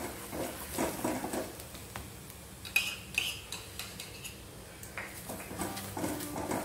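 A steel spoon scraping and tapping over a paratha on a flat griddle as ghee is spread on it. There are two sharp metallic clinks of the spoon about three seconds in.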